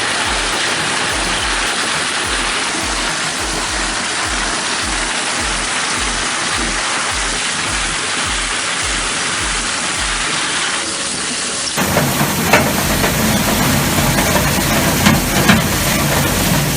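Industrial shredder grinding material: a dense, steady hiss with a regular low thump about twice a second. About twelve seconds in it cuts abruptly to a heavier, lower-pitched machine with sharp cracks and crunches of material breaking.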